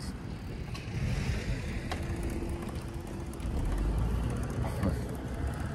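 Road traffic passing: a steady low rumble that swells for a moment about three and a half seconds in.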